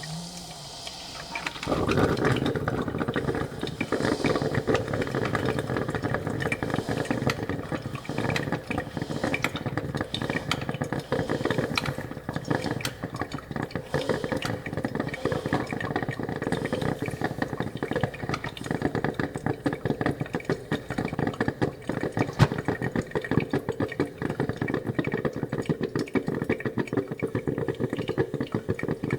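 Coffee-making sound: after a short quieter stretch, a continuous dense crackle of many small clicks with a steady mid-range rumble begins about two seconds in.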